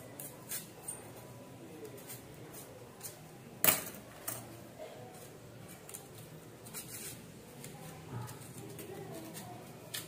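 Light handling of card and paper cut-outs on a tabletop: scattered soft clicks and rustles, with one sharp knock a little under four seconds in.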